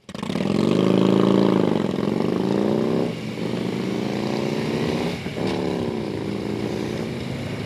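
Harley-Davidson Street Glide's V-twin engine under way, its note rising and then falling with the throttle, with two brief breaks about three and five seconds in, over wind rush. The sound cuts in suddenly at the start.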